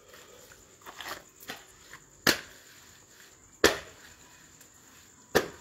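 Three sharp smacks about a second and a half apart, with a few fainter knocks before them, over the steady high drone of crickets.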